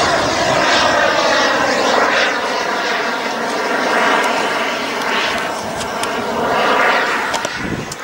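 Radio-controlled model jet flying overhead: a steady engine roar with a whine whose pitch drifts up and down, growing louder and fainter as it passes.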